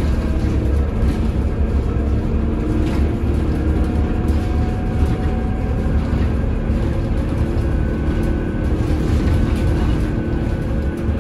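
Cabin sound of a Scania CN280UB city bus driving, its Scania OC09 five-cylinder CNG engine running under a steady low rumble of road noise. A faint whine rises slightly in pitch partway through.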